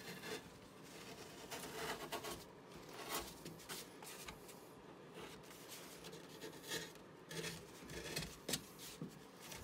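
A small blade scraping and carving the edges off a Bondo body-filler head post in short, irregular strokes. The filler is still warm and not fully cured, so it shaves off easily.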